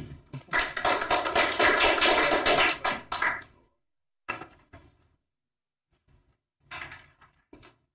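A short round of applause from a class audience, dense hand claps lasting about three seconds, followed by a few scattered knocks and bumps.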